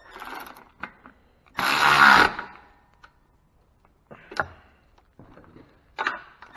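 Workshop handling noises from tools and engine parts: scattered knocks and clicks, with one loud, short rasping rush of noise about one and a half seconds in.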